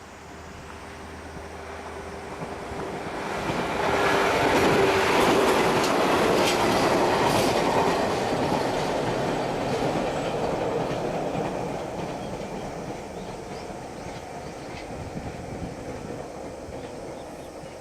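KuMoYa 145 electric motor car passing by: its running noise swells over about four seconds, wheels clack over the rail joints at its loudest, then it slowly fades away.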